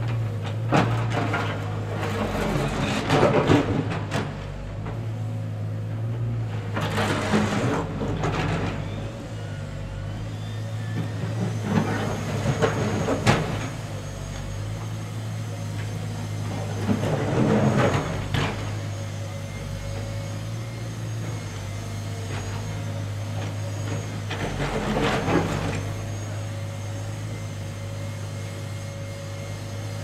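Komatsu wheeled excavator working, its diesel engine running steadily, with louder noisy surges every few seconds as it digs.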